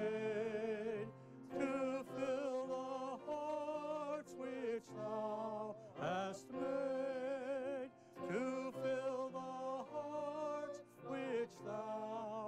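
Music: a singer holding long notes with vibrato, in phrases broken by short pauses.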